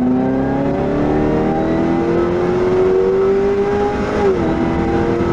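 A Chevy SS's LSA-supercharged 6.2-litre V8 accelerating hard, heard from inside the cabin. Its pitch rises steadily, dips briefly about four seconds in, and then holds level.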